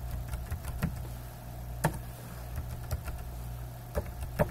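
Scattered, irregular clicks of computer keyboard keys being typed, over a steady low hum.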